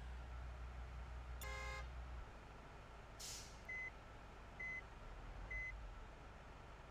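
A faint low rumble that stops about two seconds in, a short buzzy tone, a brief hiss, then three short high electronic beeps about a second apart.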